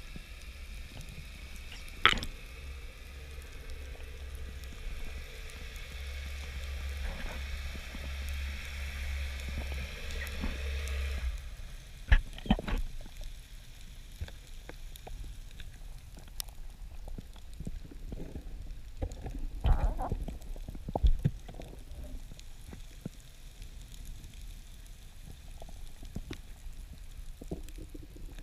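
Underwater sound picked up through a camera housing on a breath-hold dive: a steady low hum with a few level tones that cuts off about eleven seconds in, over a fine, constant crackle. Several sharp knocks stand out, one early, two close together just after the hum stops, and two more later.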